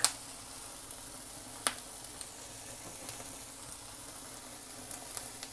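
Chicken drumsticks sizzling steadily on a wire grill rack over a gas flame, with two sharp clicks: one at the start and one about a second and a half in.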